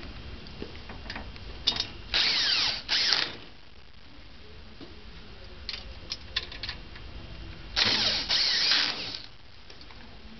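Cordless drill-driver driving screws into the trolley frame in two runs, one about two seconds in with a brief break and a longer one about eight seconds in, its whine shifting in pitch as the motor speeds up and slows. Small clicks and knocks of handling fall between the runs.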